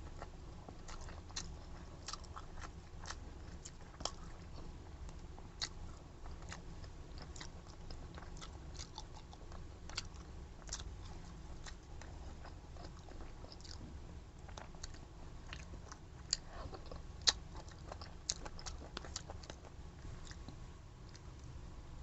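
A person chewing and eating close to the microphone: a run of small, irregular mouth clicks and smacks over a steady low hum, with two sharper clicks about sixteen and seventeen seconds in.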